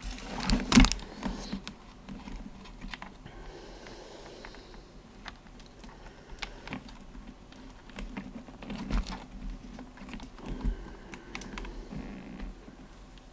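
Scattered small clicks and taps of hand tools and small parts being handled on a workbench during soldering rework, loudest in a cluster about half a second in, with more around nine and ten and a half seconds.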